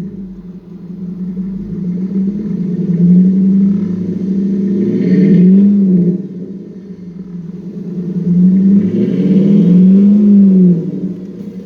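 Dodge Charger's 5.7 Hemi V8 running, just fitted with a new serpentine belt and belt tensioner pulley, and revved up and back down twice.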